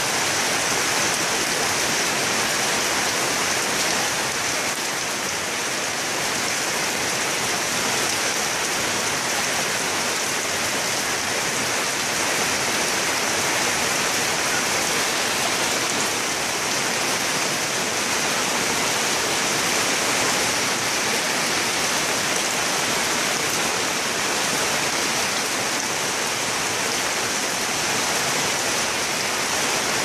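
Heavy rain falling steadily on leaves, an even hiss without let-up.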